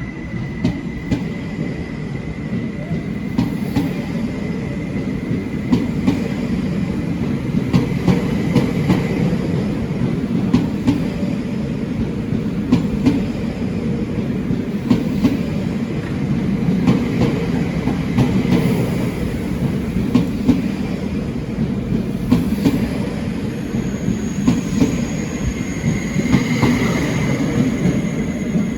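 Train rolling along the track: a steady rumble with repeated sharp clacks of wheels passing over rail joints and points. A thin, high wheel squeal comes in near the end.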